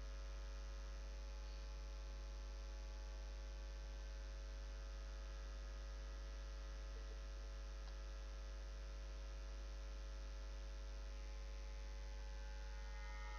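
Steady electrical mains hum with a row of overtones, unchanging throughout, with no other sound over it.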